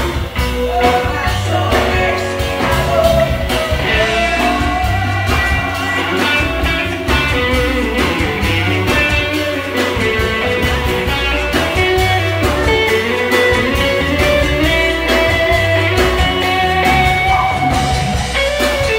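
Live rock band playing: electric guitar over bass and drums with a steady beat, and a woman singing.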